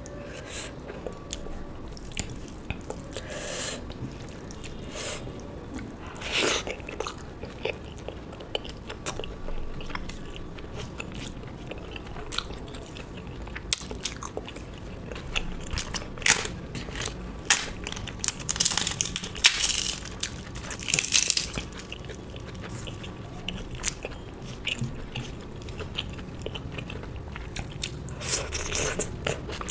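Close-miked eating sounds: a person biting and chewing crunchy food in irregular crunches and sharp mouth clicks. The loudest crunching comes about two-thirds of the way through.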